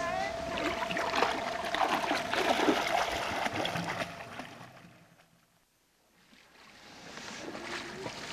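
Shallow water splashing, with knocks and bumps on a canoe's hull, as two people climb out of it onto a beach, over a steady background hum. The sound fades away about five seconds in and comes back faintly near the end.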